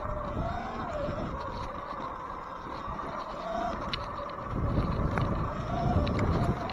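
Luna Sur Ron Ludicrous XX electric dirt bike riding along a dirt trail: a steady whine from its electric drive that wavers slightly in pitch with speed, over a low rumble that gets louder about two-thirds of the way through.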